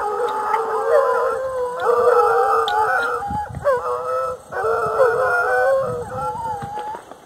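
A pack of American hunting hounds baying together while hunting, several voices overlapping in long rising and falling cries, with a brief break about four and a half seconds in.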